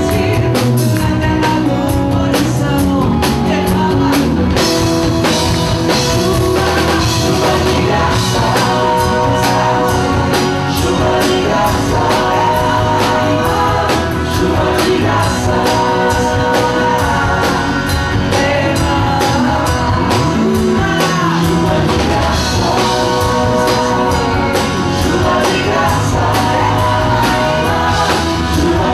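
A woman singing live into a microphone over a full band with electric guitar and keyboards. The music is loud and steady, in a Catholic pop-rock worship style.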